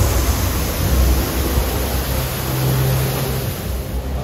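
Water pouring down from a water-curtain effect in a dark boat ride: a steady rush of falling water, thinning out near the end as the boat moves past. Beneath it runs a low rumble, with a steady low hum for about a second and a half from two seconds in.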